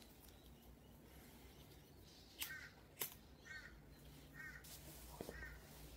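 A lighter struck twice, two sharp clicks about half a second apart, over near silence. A bird calls faintly four times, short calls about a second apart.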